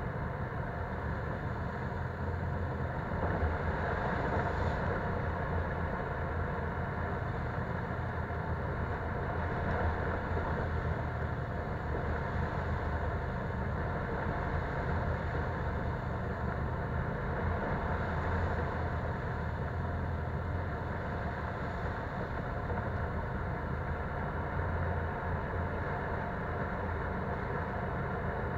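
Polaris Sportsman 570 ATV's single-cylinder engine running steadily at trail speed, heard on board, with the tyres rolling over a dirt trail.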